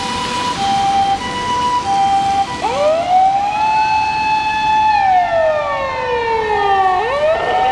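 Japanese ambulance electronic 'harmonic' siren: first a hi-lo two-tone alternation switching about every half second, then about two and a half seconds in a wail that rises, holds, slowly falls and rises again near the end.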